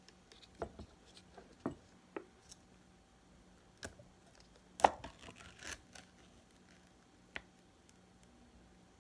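Irregular small clicks and taps of objects being handled, with one louder knock about five seconds in.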